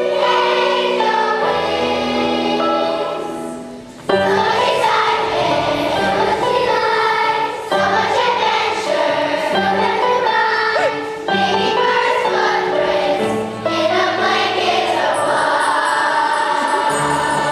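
A school choir singing with accompaniment; the music dies away briefly about four seconds in, then comes back in full.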